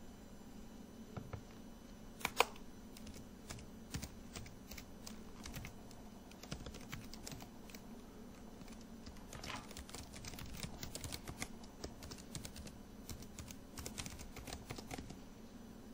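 Typing on a computer keyboard: scattered key clicks with quicker runs of keystrokes around the middle and near the end, and one sharper click about two seconds in.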